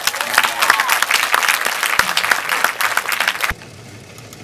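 Audience applauding, a dense crackle of many hands clapping that cuts off abruptly about three and a half seconds in, leaving only a faint low hum.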